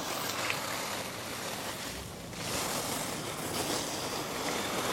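Wind rushing across the camera microphone in gusts, swelling and easing, with a dip about two seconds in.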